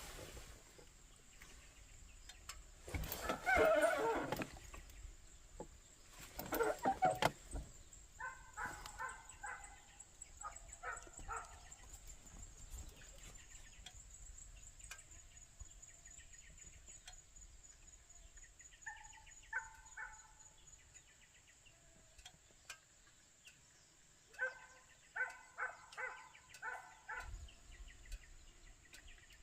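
Faint animal calls in bursts: a louder drawn-out cry about three seconds in and a shorter one near seven seconds, then runs of short, quickly repeated calls, over a high thin trill.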